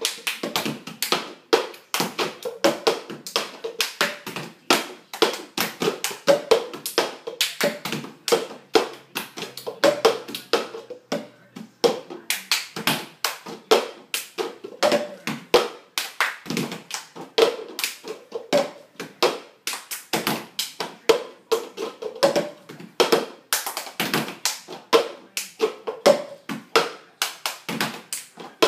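Hands clapping and plastic cups tapped on a wooden floor in a quick, repeating rhythm: a children's clapping and cup game.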